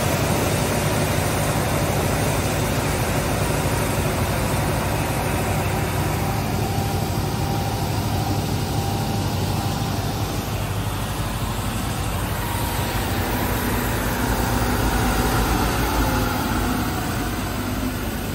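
Stemac LCRT 900 wide-belt sander with two sanding heads running steadily under load while sanding wood, a constant hum with a faint whine over the rush of the belts.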